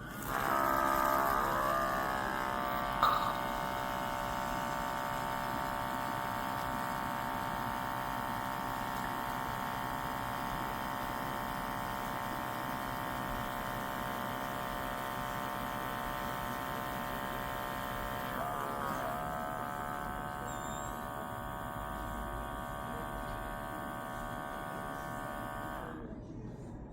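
Small electric pump motor of a portable espresso machine running with a steady buzzing hum. It starts abruptly and is loudest in the first two seconds. Its pitch wavers briefly twice, and it cuts off suddenly near the end.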